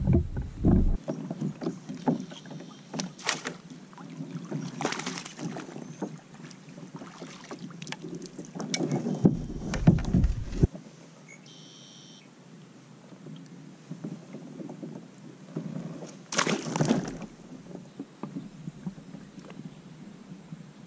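Scattered knocks, clicks and handling noise of fishing gear against a plastic fishing kayak, with two heavy low bursts of wind on the microphone in the first second and around ten seconds in.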